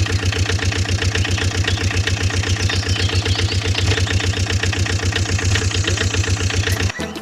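Truck engine sound effect running with a steady, rapid, even chug, cutting off suddenly about seven seconds in.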